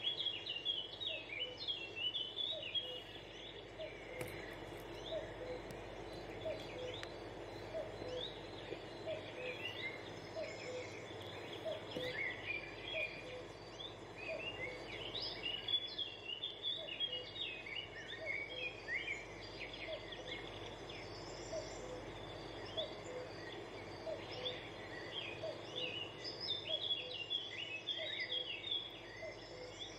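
Birds chirping and twittering in clusters, over a short low note that repeats evenly about three times every two seconds and a soft steady hiss.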